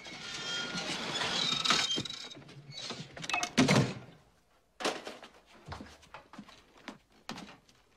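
A folding wooden attic ladder being pushed up into the ceiling, creaking and squeaking on its hinges and springs, then the attic hatch shutting with a loud thud about three and a half seconds in. Scattered knocks and creaks of someone moving about on the attic boards follow.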